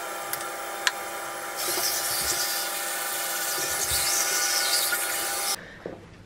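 Electric toothbrush buzzing steadily, with the bathroom tap running into the basin; a louder hiss joins about a second and a half in, and the sound cuts off abruptly near the end.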